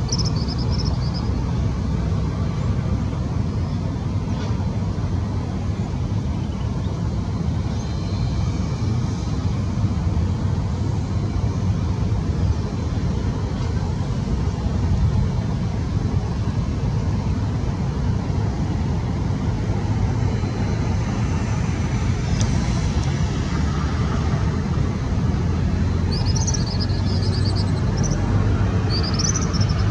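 Strong wind rumbling on the microphone, mixed with the distant jet noise of an American Airlines Airbus A319-115's CFM56 engines on final approach, growing a little stronger as it nears. There are a few short, high bird chirps at the start and again near the end.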